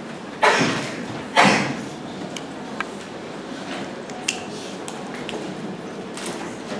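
Classroom room noise while students work silently at their desks, with two short loud sounds about a second apart near the start, each fading over about half a second, then a few faint clicks.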